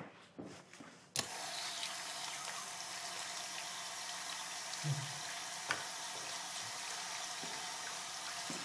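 A bathroom tap turned on about a second in, water running steadily into a trough sink, with a couple of light knocks midway.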